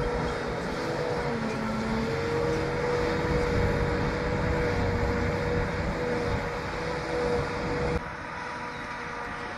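A vehicle engine running steadily with a held whine. The sound drops off suddenly about eight seconds in.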